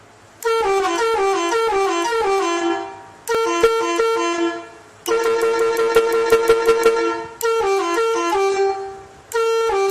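Landun Marcopolo three-trumpet, six-tone 24-volt telolet horn playing short melodies. There are four phrases of quickly alternating, stepping notes, the third a held chord chopped into rapid pulses, and a fifth phrase begins near the end.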